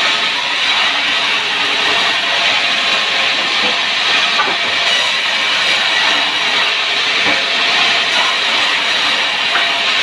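Power saw cutting through wood: a loud, steady rushing noise that holds unchanged throughout.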